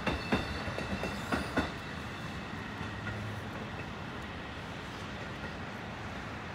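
Train cars rolling past, their wheels clacking over rail joints in the first couple of seconds, then a steadier rolling noise as the clacks die away.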